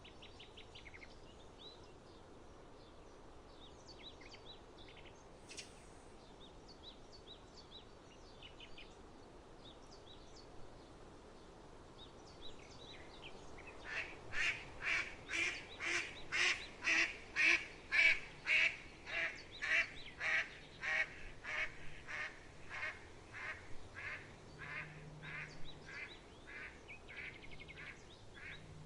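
A waterfowl calls in a long series of repeated quack-like calls, about two a second. The calls build, peak, then gradually fade out. Before it, faint chirps of small birds are heard.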